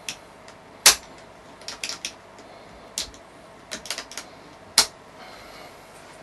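Sharp metallic clicks from the trigger and selector area of a deactivated Bren light machine gun being worked by hand. There are a dozen or so clicks, some in quick clusters, and the loudest come about a second in and just before five seconds.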